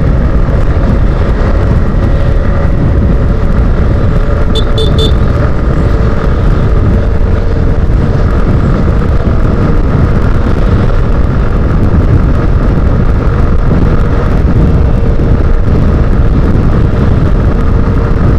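Motorcycle riding at road speed in traffic, a steady engine hum under heavy wind noise on the microphone. Three short high beeps come about four and a half seconds in.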